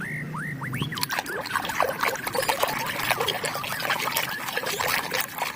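Water trickling and splashing as a muddy plastic toy animal is rinsed clean, with quick rising plinks at first and then a busy patter of small drips.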